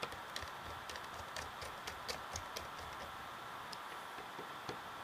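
Faint, irregular small clicks and taps of a screwdriver and small screws being worked into a Mac mini's internal frame, over a steady faint hiss with a thin high tone.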